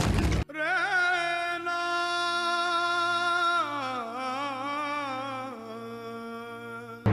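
A single voice singing or humming long held notes, wavering at first, then stepping down in pitch twice and growing quieter toward the end. A short burst of noise opens it.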